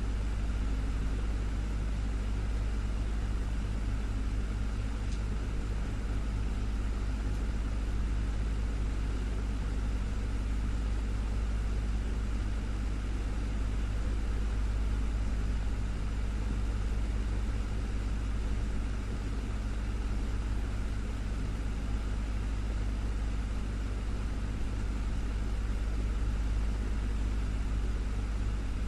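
Desktop fan running steadily: a constant low hum under an even whoosh of moving air, with no change in speed.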